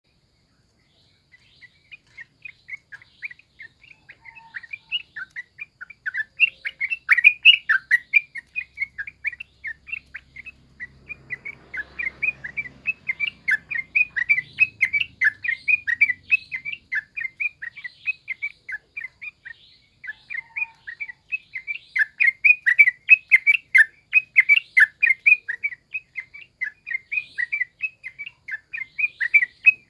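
Yellow-vented bulbul chattering in its rowdy wild-style 'ngalas' song: a fast run of short, sharp notes, about four a second. The run starts about a second in, grows louder, breaks off briefly about two-thirds of the way through, then resumes.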